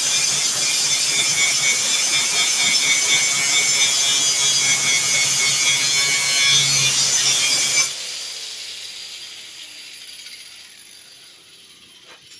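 Angle grinder grinding off a spot weld in sheet steel, loud and steady. About eight seconds in, the grinder lets off the metal and cuts out, and its motor winds down with a falling whine that fades away.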